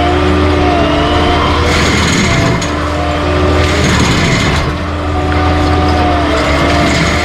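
Skid steer engine running steadily under load with a wavering whine, its forestry stump grinder/mulcher head giving out harsher grinding noise twice, about two seconds in and again around four seconds.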